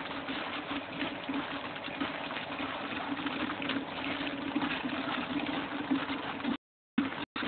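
Homemade HHO (oxyhydrogen) generator running, its gas bubbling and gurgling through water, with a steady low hum underneath. The sound cuts out briefly twice near the end.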